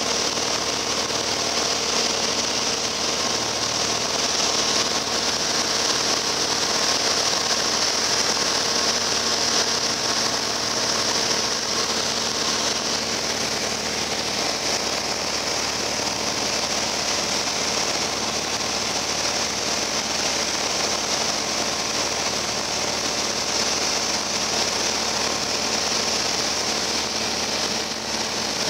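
Steady drone of a Piper Cherokee Arrow's single piston engine and propeller in flight, heard from inside the cockpit, with a constant hiss over it.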